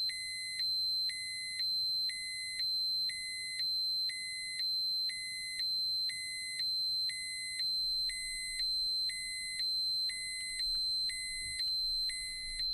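Radiation dosimeter alarm: electronic beeping about once a second over a steady high-pitched tone.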